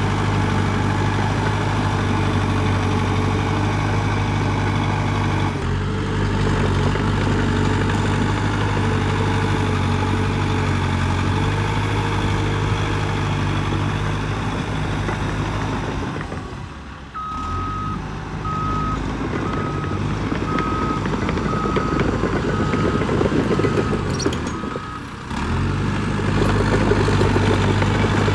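Diesel engine of a Cat D3K2 XL crawler bulldozer running steadily under work. Past the middle, a reversing alarm beeps about ten times, a little under once a second, marking a machine backing up.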